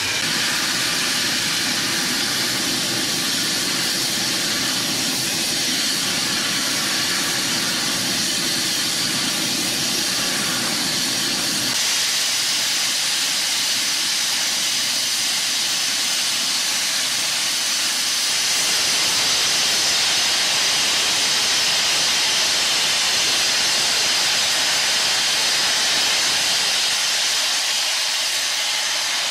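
Steady hiss of steam escaping from the ex-Port Talbot Railway 0-6-0 saddle tank locomotive No. 813. A low rumble under it stops about twelve seconds in, and the hiss grows louder about eighteen seconds in.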